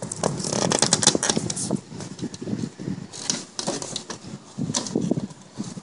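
Plastic clicking and rattling as the BMW front grille's retaining clips and tabs are pressed and worked by hand. There is a dense flurry of small clicks in the first couple of seconds, then scattered clicks again around the middle and near the end.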